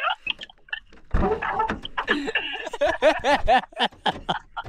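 A man's wordless vocalising, a quick run of sounds whose pitch arches up and down, ending with a few short sharp clicks near the end.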